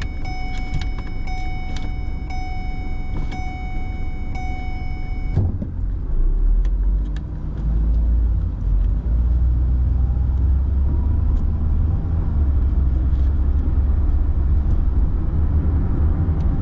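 Car interior: a repeating electronic chime, about once a second, cuts off with a sharp knock about five seconds in. Then engine and road rumble build as the car pulls away from the light.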